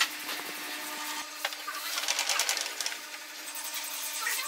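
Table saw cutting into a squared wooden post for a half-lap joint. Under a steady faint hum there are scattered clicks and a rasping stretch about two seconds in.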